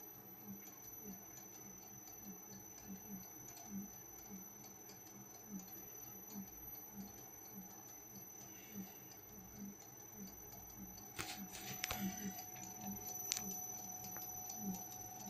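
Mini lathe running under a cut: a steady high whine with a faint knock about twice a second, and from about eleven seconds in a crackle of sharp clicks as chips break off the work.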